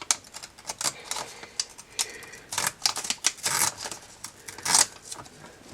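Canon P1-DHV printing calculator in use: irregular clicking of its keys and the clatter of its motor-driven print mechanism, with a few longer runs of clatter.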